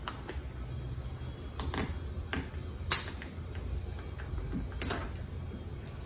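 Hands handling the interior unit of a smart deadbolt on a door: a few light plastic and metal clicks and knocks, the loudest a sharp snap about halfway through and another click near the end.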